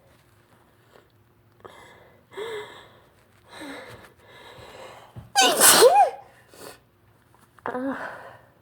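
A person's allergy sneeze: a run of catching, breathy inhales builds up, then one loud sneeze about five seconds in. Another sharp voiced breath follows near the end.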